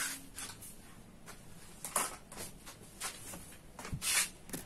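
A few scattered light knocks and rustles, the loudest about two seconds in and near the end, with a low thump just before four seconds in.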